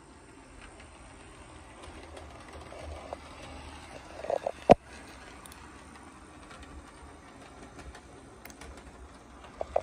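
HO scale model diesel locomotive running along the layout track: a low motor hum with light clicking from the wheels over the rails, a few short squeaks, and one sharp click a little under five seconds in.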